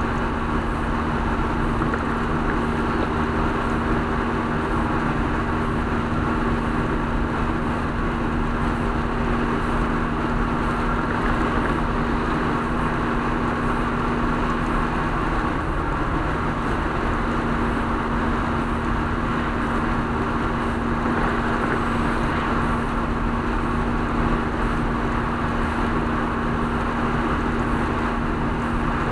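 A car cruising at highway speed, heard from inside the cabin: steady road noise with a low engine drone.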